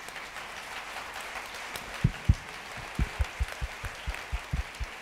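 Audience applauding. From about two seconds in, heavier, closer claps stand out as low thumps at about four a second.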